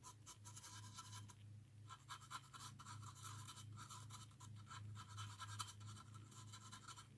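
Faint, quick scratching and dabbing strokes of a paint touch-up applicator on a Lionel 221 locomotive shell, over a steady low hum.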